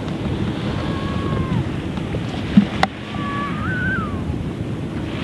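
Wind buffeting the microphone over waves washing onto the beach, with a brief sharp click about three seconds in.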